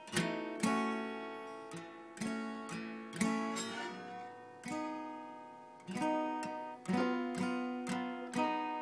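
Acoustic guitar music: chords strummed or plucked and left to ring and fade, a new one about every second.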